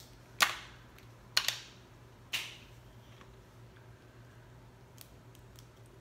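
Boiled crawfish shell cracked and peeled by hand close to the microphone: three sharp cracks about a second apart in the first two and a half seconds, then a few faint clicks near the end.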